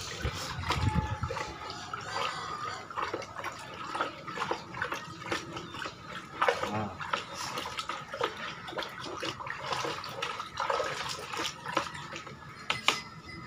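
A wooden stick stirring water round in a plastic bucket: continual sloshing and splashing, with irregular clicks and knocks as the stick works through it.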